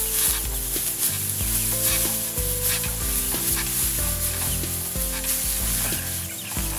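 Dry rice straw rustling and crackling underfoot as harvested rice sheaves are trampled to thresh out the grain, the traditional way, with background music of held notes underneath.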